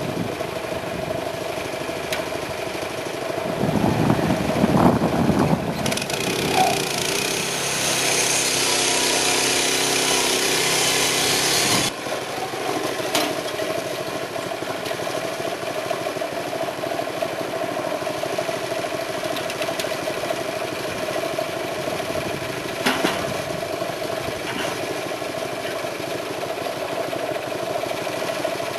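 Small single-cylinder Honda GX gasoline engine of a portable band sawmill running steadily. For several seconds starting about four seconds in, the sound is louder and fuller, as if under more load or higher speed, then it drops back abruptly to the steady run.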